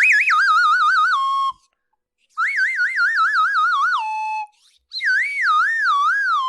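Cartoon whistle sound effect played three times: each time a warbling whistle steps down in pitch and settles on a held low note, like a comic 'wah-wah' letdown.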